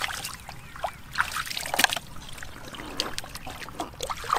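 Hands groping and splashing through shallow muddy water, with irregular small splashes, drips and wet squelches.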